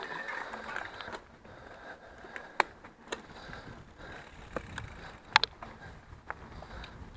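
Mountain bike rolling over a rough dirt singletrack: tyres crunching on the trail, with the bike rattling and a few sharp knocks and clicks over bumps, the strongest about two and a half and five and a half seconds in.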